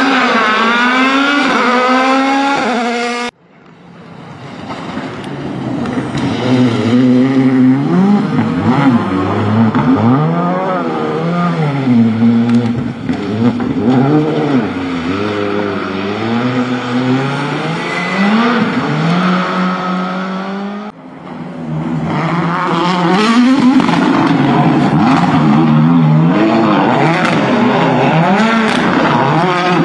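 Rally car engines revving hard through the gears, their pitch climbing and dropping again and again. The sound cuts abruptly twice as one car gives way to the next. The last car is a Ford Fiesta WRC.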